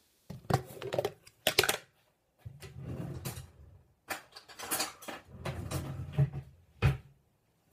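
Knocks, clicks and rustling of items being handled on a kitchen counter, with a few sharp clicks about a second and a half in and a single loud knock near the end.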